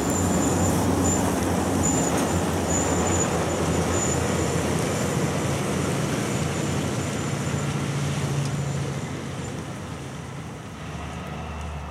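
Loaded Kenworth log truck and trailer going past, with engine and tyre noise that fades steadily as it drives away.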